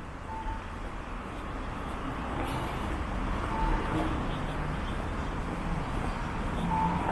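Distant road traffic: a steady low rumble that swells slightly, with three brief faint high tones.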